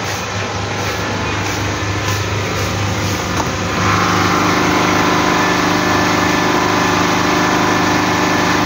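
Generator engine running steadily with a constant hum, growing louder about four seconds in.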